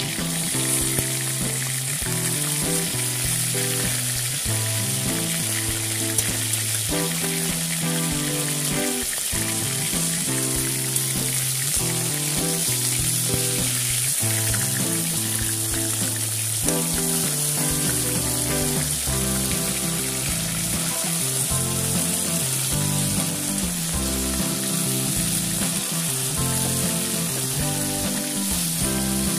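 Pieces of bhola fish sizzling steadily as they fry in hot mustard oil in a metal kadai, with a few clicks of a metal spatula as the pieces are turned over. Background music with sustained notes plays underneath.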